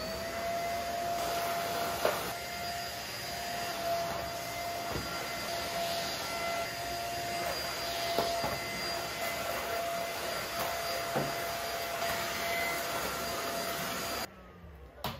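A corded stick vacuum cleaner starts up, its motor whine rising into a steady pitch, then runs with a few light knocks as the head is pushed over the rug and floor. About a second before the end it is switched off and the whine falls away.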